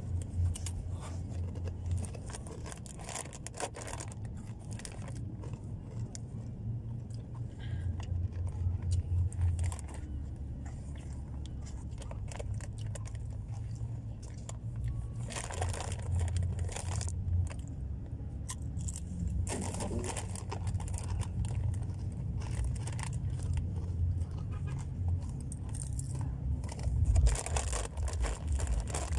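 Crunchy rolled corn chips being chewed, with scattered crunches and a chip bag rustling now and then, over a steady low rumble.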